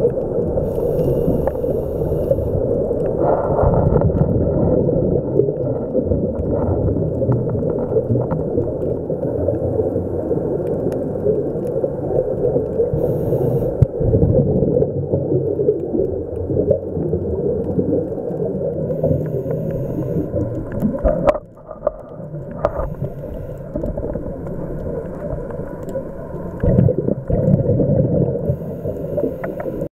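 Scuba diver's breathing through the regulator, muffled underwater through the camera housing: a continuous low rumbling of exhaled bubbles, with a few brief high hisses.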